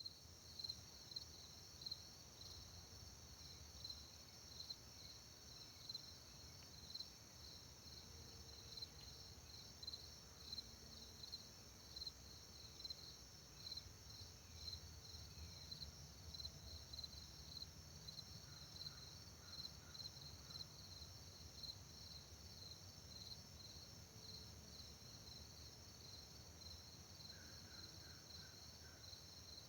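Crickets chirping in a steady, pulsing chorus over a faint continuous low rumble, with a few soft bird chirps. No passing vehicle accounts for the rumble, and its source is unknown.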